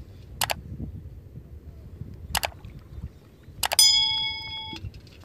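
Fish and hands knocking against a metal pot as fish are taken from a gill net and dropped in: two short sharp clicks, then a louder clang that rings for about a second, with faint splashing and handling underneath.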